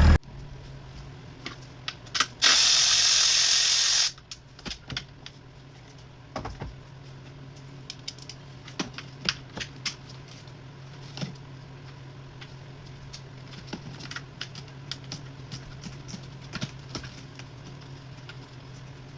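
A loud hiss, like a spray, lasting under two seconds, then scattered light clicks and knocks of tools and parts being handled over a steady low hum.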